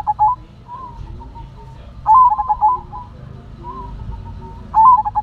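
Zebra dove (perkutut) singing: three bursts of rapid, stuttering coos, one at the start, one about two seconds in and one near the end, each followed by softer drawn-out coos.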